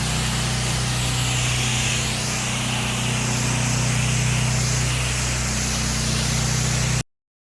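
Pressure washer running steadily, its motor humming under the hiss of a water spray striking the house walls; the sound cuts off abruptly about seven seconds in.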